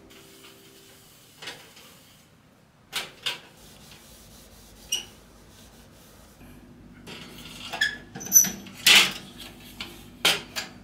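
Scattered clicks and light knocks of small objects being handled, a few at a time. The clicks come closer together and louder from about seven and a half seconds in, the loudest around nine seconds.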